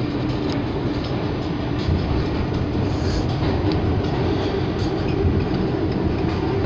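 Subway train running, heard from inside the car: a steady low rumble with faint wheel clatter over the rails.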